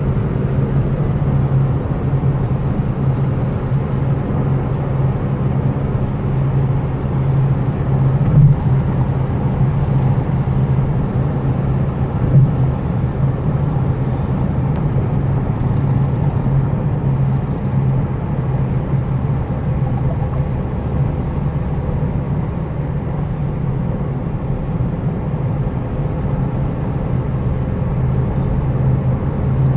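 Hyundai Accent at highway speed, heard inside the cabin: a steady low grinding drone over road and engine noise, with two brief bumps about eight and twelve seconds in. The grinding comes from behind the steering wheel and shows up when driving straight above 80 km/h.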